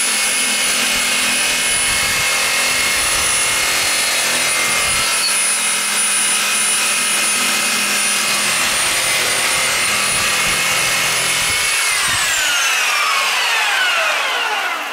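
Cordless reciprocating saw running flat out while its blade cuts through a Christmas tree trunk: a steady high motor whine over the rasp of the blade in the wood. About twelve seconds in the trigger is released and the motor winds down, its pitch falling away.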